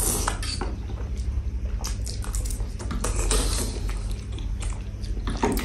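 Two people eating noodles: chewing, with many small clicks and scrapes of forks against bowls.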